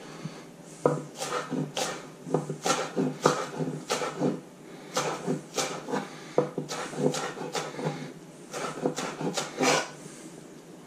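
Kitchen knife dicing raw onion on a wooden chopping board: an irregular run of sharp taps of the blade on the wood, about two or three a second, with short pauses.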